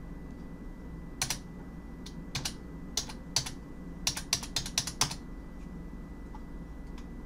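Computer keyboard keystrokes, a few single taps, then a quick run of about six near the middle, over a low steady hum.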